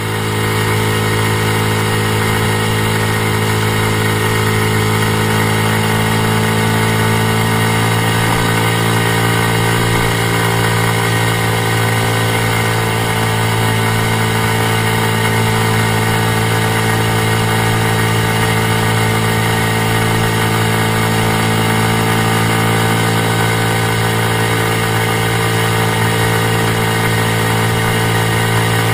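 Honda Super Cub's single-cylinder four-stroke engine running steadily, with a hissing 'shaa' noise from near the crankcase on top of the engine note, which the owner suspects is a bearing.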